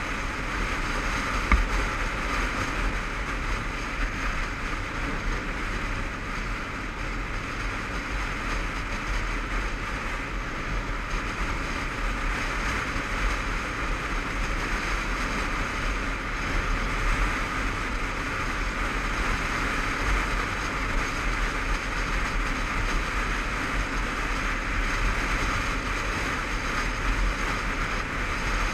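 Steady rush of wind and road noise while riding a Honda CBF500 motorcycle at speed, as picked up by a helmet-mounted camera, with the engine's drone buried in the rush. A single brief knock about a second and a half in.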